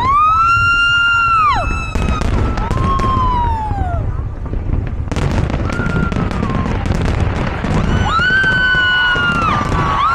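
Fireworks display: booms and crackling bursts over a low rumble, with several high whistles that rise, hold for a second or so and fall away.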